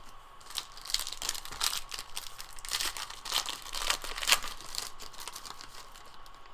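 A trading-card pack wrapper being torn open and crinkled by hand, an irregular run of crackling and tearing that lasts a few seconds.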